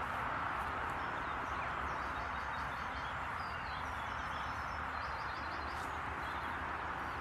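Steady outdoor background hiss with small birds chirping faintly in short repeated trills.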